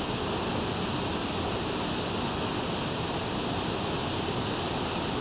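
Steady, even rushing hiss with no change in level, of the kind made by moving water or wind on the microphone.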